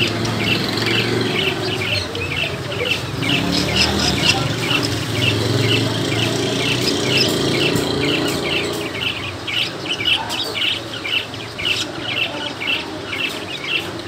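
Cockatiel chirping in a quick, even series of short high notes, about three a second, over a low background hum.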